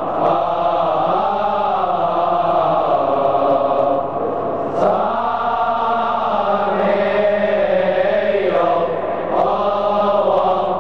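A choir of young male Coptic deacons chanting a hymn together in long held notes, breaking off briefly about four and nine seconds in.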